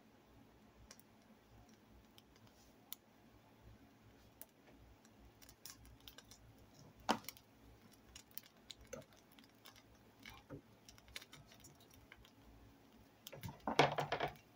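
Faint, scattered clicks and small pops from bread toasting in butter in a nonstick pan. A sharper click comes about seven seconds in, as a spatula touches the pan, and a brief louder noise follows near the end.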